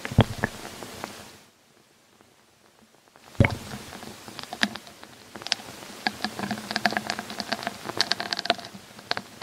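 Irregular clicks and knocks picked up by a recorder lowered down a 22 m deep hole in a field: a few knocks, a quiet pause, one sharp knock, then a dense patter of ticks over a faint low hum. The uploader takes these for underground tunnel work, drilling and blasting.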